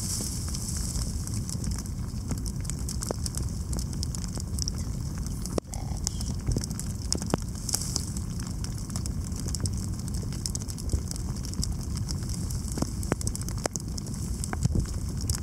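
Wind rumbling on the microphone, over a constant fine crackling of many small clicks, with a few sharper ticks now and then.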